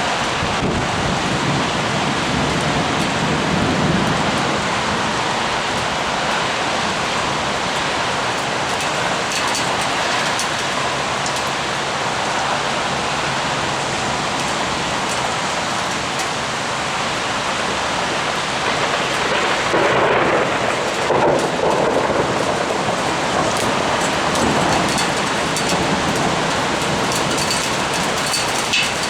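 Heavy rain pouring steadily in a thunderstorm, with a low rumble of thunder a few seconds in and a louder stretch of rain about twenty seconds in.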